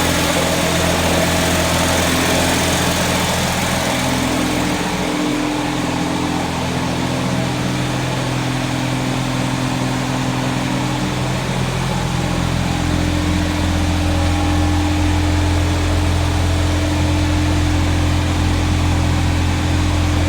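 1979 Datsun 210's four-cylinder engine idling with a persistent misfire. Its note wavers for several seconds about a quarter of the way in, then settles into a steady idle.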